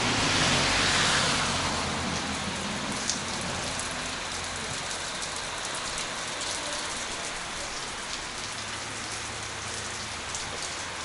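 Heavy rain falling steadily, a little louder for the first second or two and then even.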